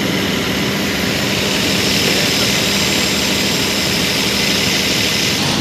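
Caterpillar 400 kVA diesel generator set running, heard close up through its open enclosure door. It is a loud, steady engine drone with a constant hum, and the rushing noise grows slightly brighter about two seconds in.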